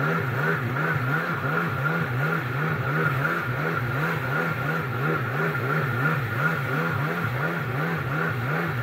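Two-stroke engine of a 1998 Kawasaki SXi Pro stand-up jet ski running steadily at low speed. Its note wavers up and down about three times a second.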